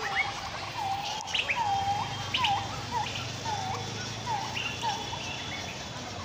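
A bird calling over and over, a short whistled note that dips and rises again, repeated a little under twice a second, with a few quick higher chirps mixed in.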